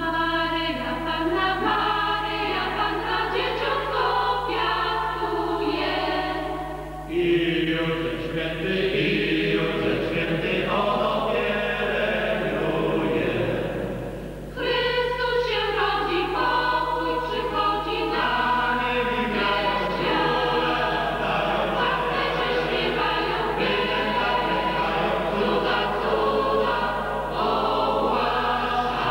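Mixed choir of men's and women's voices singing a Polish Christmas carol (kolęda), with two brief breaks between phrases, about 7 and 14 seconds in.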